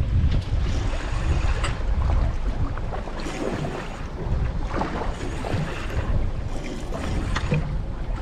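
Wind buffeting the microphone over open sea, with water lapping against the boat and a few small splashes or knocks scattered through.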